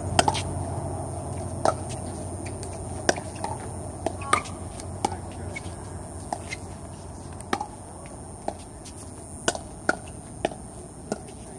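Pickleball rally: hard paddles hitting a plastic pickleball, a run of short, sharp knocks at uneven intervals, about one every half second to a second and a half.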